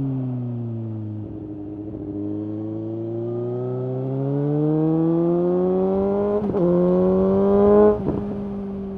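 2019 Suzuki GSX-S750's inline-four engine through a Yoshimura SQ11 exhaust with no dB killer and a decat. It slows and settles low for a few seconds, then pulls hard with its pitch climbing steadily. It breaks briefly for a gear change about six and a half seconds in, keeps rising, and the throttle closes suddenly near the end.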